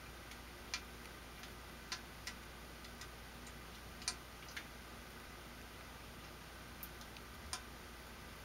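Faint, sharp clicks at irregular intervals, about eight in all, over a low steady hum.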